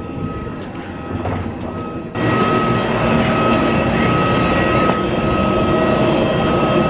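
Steady machinery hum with a high whine of several steady tones, from an airliner and ground equipment at the gate, heard from inside the jet bridge. It jumps suddenly louder about two seconds in.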